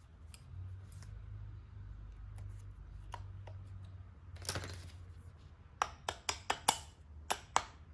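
Metal clicks and scraping as a snap ring is worked into its groove on an air-conditioning compressor's magnetic clutch. There is a short scrape about halfway through, then a quick run of sharp metallic clicks near the end as the ring seats.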